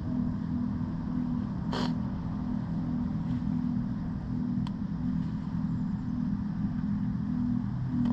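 Wind buffeting the microphone with tyre and road rumble from a moving road bike, a steady low rumble throughout. A brief sharp noise cuts through about two seconds in, and a faint click comes a little before the five-second mark.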